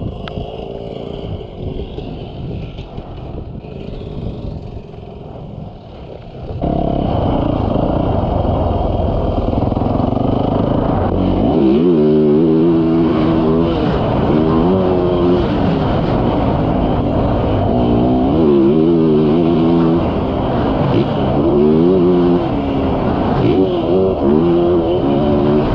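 Yamaha YZ450F's single-cylinder four-stroke engine running on a motocross bike. It runs quieter at first, gets suddenly louder about six and a half seconds in, and from about eleven seconds on its revs rise and fall over and over as the bike accelerates and backs off.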